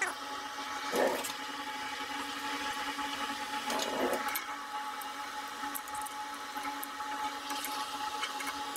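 A steady mechanical hum, with two short knocks about one and four seconds in.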